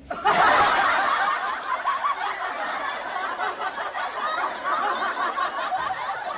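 Canned laughter from many people, a laugh-track sound effect, starting suddenly and holding steady.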